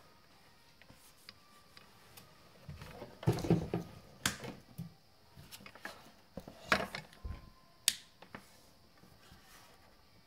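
Handling noises from a spiral fluorescent photo bulb in its plastic lamp holder and its cord: irregular clicks, knocks and rustles. The busiest, loudest cluster comes about three seconds in, followed by a few single sharp clicks.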